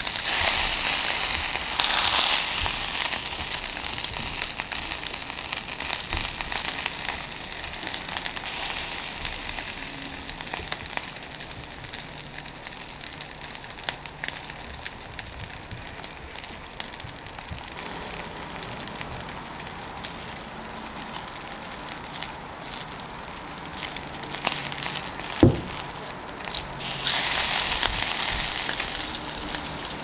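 Pork belly slices sizzling and crackling on a grill over charcoal, the sizzling louder at the start and again for the last few seconds, with one sharp tap a little before the end.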